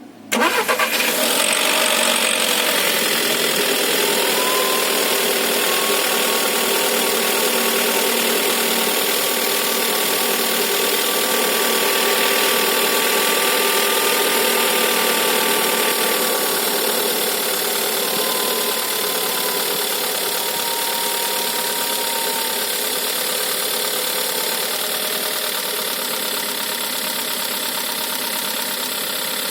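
Volkswagen Golf 6 1.4 TSI four-cylinder petrol engine starting about half a second in, then idling steadily with a timing chain rattle, the sign of a timing chain fault.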